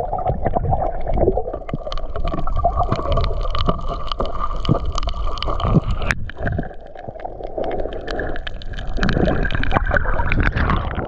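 Underwater sound picked up by a submerged camera: a muffled rumble of moving water with many sharp clicks and crackles, and a faint steady hum through most of it.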